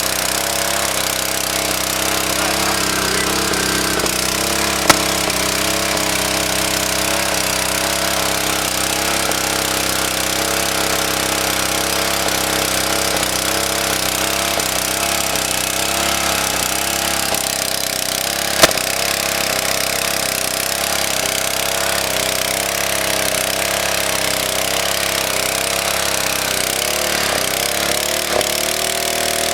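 Small engine of a water pump running steadily while it pumps out floodwater, its pitch wavering slightly and shifting a little near the end. Two sharp knocks stand out, one about five seconds in and one past the middle.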